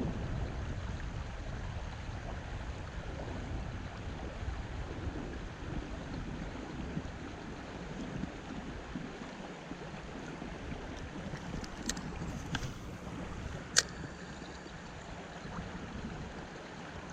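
Steady rush of flowing river water, with wind buffeting the microphone in the first half. A few sharp clicks sound in the last third.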